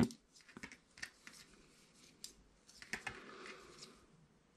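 Knitting needles clicking lightly and irregularly against each other as stitches are worked.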